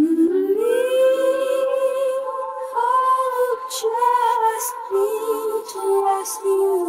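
Isolated female lead vocal, a filtered a cappella pulled from a band recording: sung notes glide upward about half a second in and are then held and shifted between pitches, with a few short hissing consonants near the middle.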